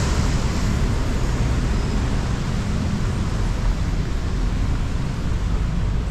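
Steady rushing noise of riding a bicycle through city traffic in the rain, with wind buffeting the microphone and passing vehicles.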